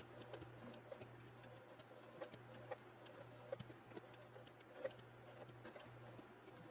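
Faint domestic sewing machine stitching: a low motor hum that eases off and picks up again, with scattered light ticks of the needle and fabric.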